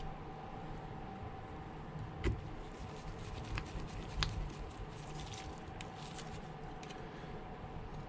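Scattered light clicks and taps of a small precision Phillips screwdriver driving screws back into a phone's midframe, a couple of them sharper, over a steady faint hum.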